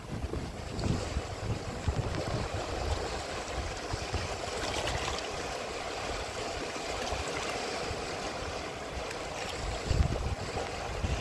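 River water running over and lapping against the stones at the bank, a steady rush. Wind gusts on the microphone about ten seconds in.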